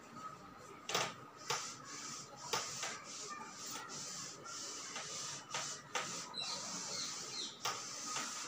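A chalkboard duster wiping chalk writing off a blackboard: a soft scrubbing hiss in strokes, with a few sharp knocks against the board.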